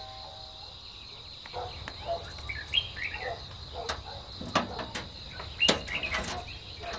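A doorbell chime dies away, then birds chirp over a steady insect drone. Several sharp metallic clicks and clacks come as the latch of a steel gate is worked.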